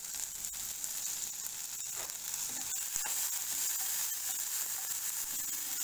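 Sweet corn kernels sizzling in butter in a nonstick kadhai over a low gas flame: a steady hiss with fine scattered crackles, while a spatula stirs through the kernels.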